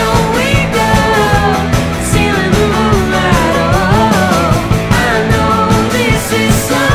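Rock song playing, with a singing voice over a steady drum beat.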